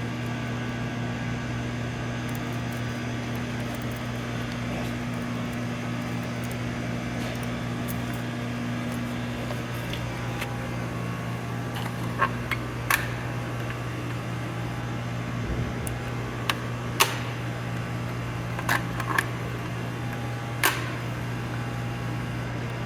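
Steady low mechanical hum, fan-like, with one part of it cutting out about nine seconds in. Several sharp clicks and taps come in the second half.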